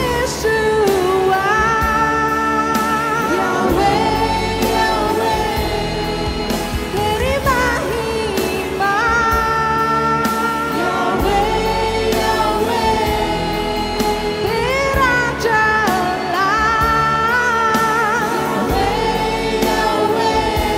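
A mixed group of men and women singing a Hindi Christian worship song together over instrumental backing, with long held notes sung with vibrato.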